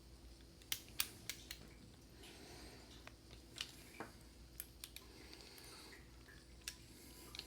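Faint, sharp clicks and taps of small metal parts being handled while an Abus/Brady 71/40 padlock is taken apart with a screwdriver: a quick group of clicks about a second in, then scattered single ticks.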